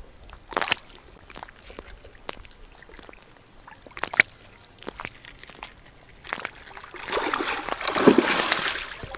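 A hooked fish thrashing at the water's surface close to the bank, with a long burst of splashing in the last two seconds and a few brief splashes before it.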